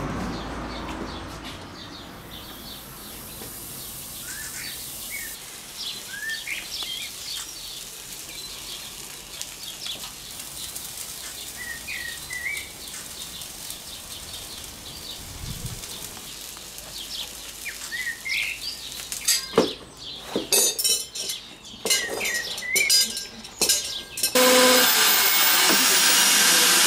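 Small birds chirping now and then, then sharp clinks and knocks of farrier's tools on the shoe and hoof. Near the end a loud, steady hiss begins: a hot horseshoe searing against the hoof horn.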